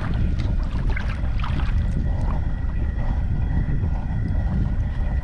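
Wind buffeting the microphone in a steady low rumble, with a few light clicks and crackles in the first two seconds as crinkle-cut fries are scooped out of hot frying oil with a metal skimmer.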